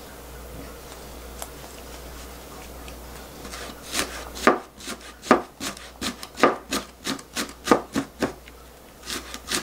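Ceramic kitchen knife mincing green onion on a plastic cutting board: a quick run of sharp chopping strokes, about three a second, starting about four seconds in.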